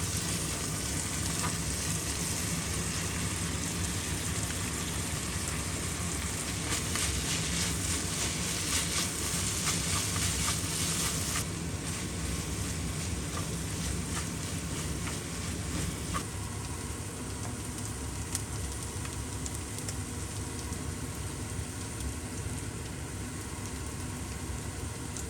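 Food sizzling in a frying pan while being stirred, with small clicks of the utensil against the pan. The sizzle is strongest for the first ten seconds or so, then eases.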